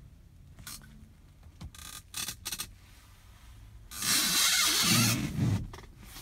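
Rustling and scraping handling noise: a few short scuffs, then a louder scrape lasting about a second and a half near the end.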